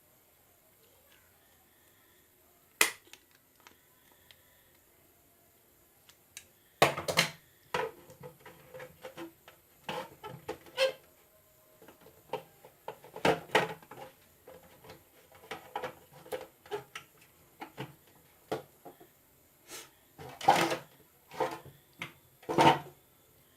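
Irregular clicks, knocks and clatters of small plastic and metal parts being handled on a bench, likely while fitting a new switch into a mixer grinder. A single sharp click comes about 3 s in, and from about 7 s on the knocks come in bunches.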